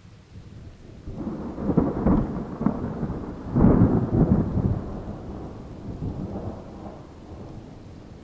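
Rolling thunder: a low rumble that starts suddenly, swells to two loud peaks, then slowly dies away.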